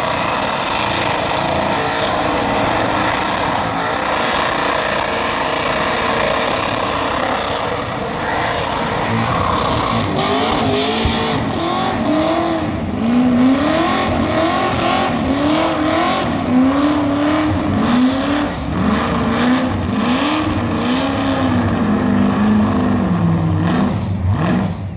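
Holden Commodore doing a burnout: engine held at high revs with spinning tyres giving a steady roar. About ten seconds in, the revs start rising and falling over and over, roughly once a second.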